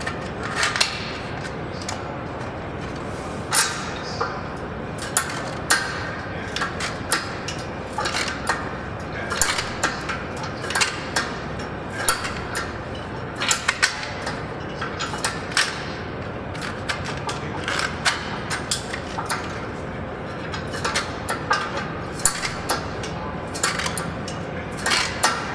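Shrinker-stretcher jaws biting a strip of sheet metal again and again as it is fed through to bend a curve into it: short, sharp metallic clacks at irregular intervals, about one or two a second.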